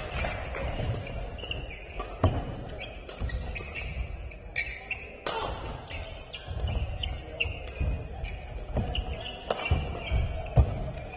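Badminton doubles rally on an indoor court: sharp racket strikes on the shuttlecock every second or two, with sports shoes squeaking on the court and footfalls thudding in between.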